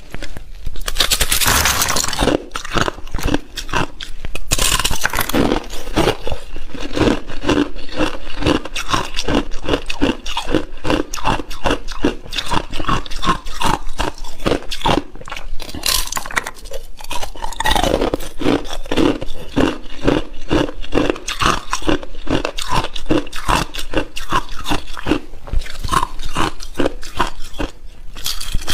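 Thin sheets of ice being bitten and chewed close to the microphone: steady, rapid crunching and cracking, with a few louder snapping bites.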